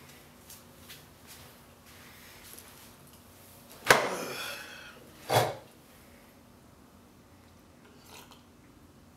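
Faint handling rustles, then about four seconds in a sharp knock followed by about a second of rustling as a person drops into a seat close to the microphone. A short dull thud follows about a second and a half later.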